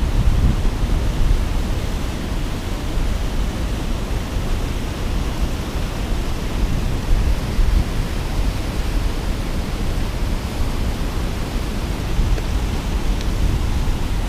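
Steady rush of turbulent, foaming water churning at the foot of a concrete spillway wall.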